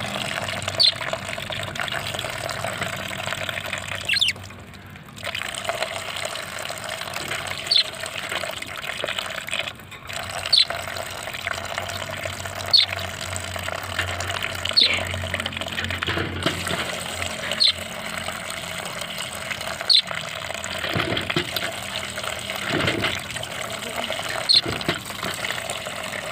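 Water running steadily from a tap while small pet birds bathe in it, with short high chirps every couple of seconds. The flow drops away briefly about four seconds in.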